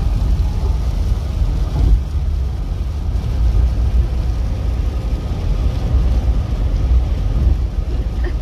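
Steady low rumble of tyre and engine noise heard inside the cabin of a vehicle driving at highway speed on a rain-wet road.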